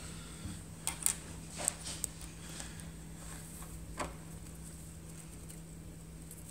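A handful of light taps and clicks from a small LED-strip circuit board being handled and set down on a concrete floor, over a faint steady low hum.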